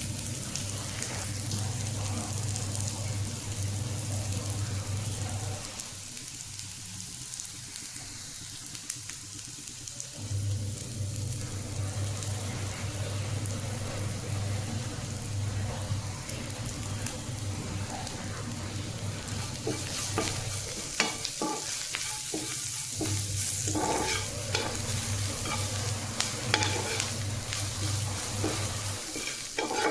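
Radish greens frying in a pan with a steady sizzle. From about two-thirds of the way through, a spatula stirs them with irregular scrapes and knocks against the pan.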